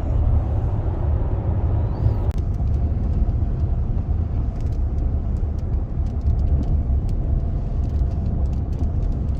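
Steady road and engine rumble heard from inside a moving car's cabin at highway speed, with one brief click about two seconds in.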